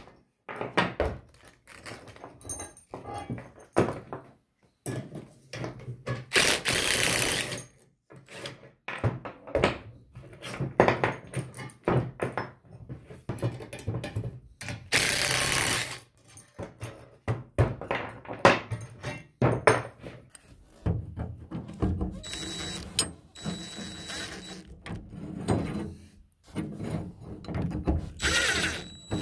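Hand assembly of steel mirror detent-swing mount parts: repeated clinks and knocks of springs, detent plates and nuts on a plywood bench. Three bursts of a cordless DeWalt driver, each about a second long, run bolts, the last near the end.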